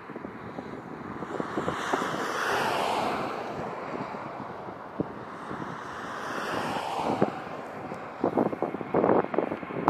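Wind buffeting the microphone, with a rushing noise that swells and fades twice; the gusts hit the microphone in sharper bursts over the last couple of seconds.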